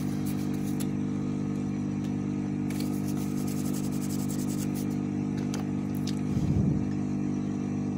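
Small electric blower motor humming steadily at one fixed pitch, with faint light scrapes and clicks of soldering tools on the circuit board.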